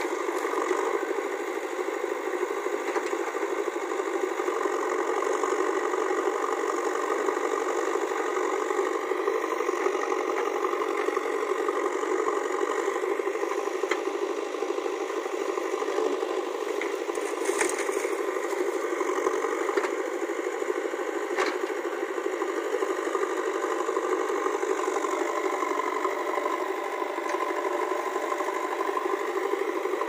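Diesel engine of a JCB 3DX backhoe loader running steadily under working load as its rear bucket digs soil and loads a tractor trolley, with a few knocks and rattles.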